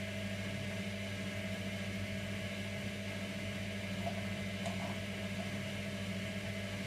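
Servis Slimline 308S washing machine running part-way through its cotton wash cycle: a steady low motor hum.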